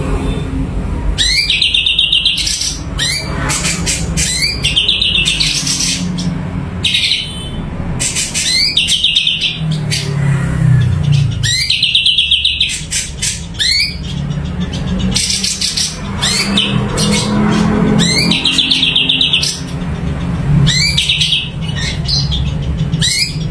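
Cucak cungko songbird singing persistently in repeated phrases, each a quick rising whistle followed by a fast warbling trill, every few seconds. A steady low hum runs underneath.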